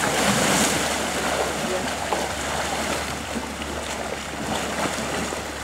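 Water splashing and churning as an Asian elephant and its calf wade into a river, loudest at first and easing off.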